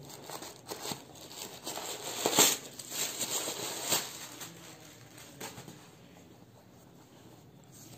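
Tissue wrapping paper rustling and crinkling as it is handled and pulled out of a cardboard shoe box, with a few sharper crackles in the first half before it dies down.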